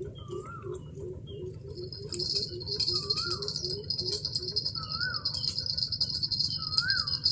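Birds calling outdoors: a fast run of low repeated hoots, about five a second, that stops about halfway through, and a rising-and-falling whistled call repeated roughly every two seconds. From about two seconds in, a steady high insect buzz joins them.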